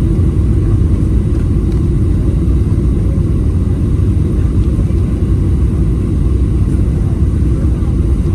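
Boeing 737 cabin noise: a steady low rumble of the jet engines and airflow heard from inside the cabin.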